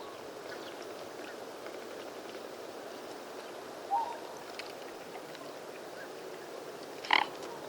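Swans calling over a steady background hiss: one short call about four seconds in, and a louder, brief call near the end.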